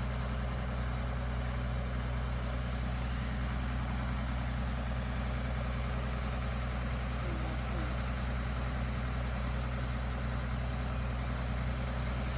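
A motor vehicle's engine running steadily at an unchanging speed, a constant low hum.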